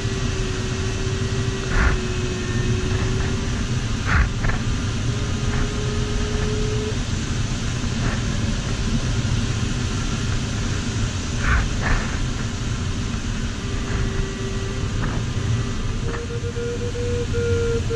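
Steady rush of air over a sailplane's canopy in flight, with the variometer's audio tone holding a steady low pitch, dropping out partway, then coming back and stepping up in pitch near the end. A few light knocks sound in the cockpit.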